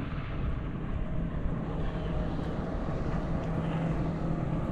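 Wind rumbling on the microphone over open water, with the steady low hum of a distant engine, likely a motorboat out on the water.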